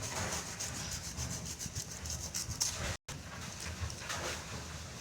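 A knife sawing back and forth through the stalk of a banana bunch, cutting off the hands of fruit in a run of rasping strokes. The sound drops out for a moment about three seconds in.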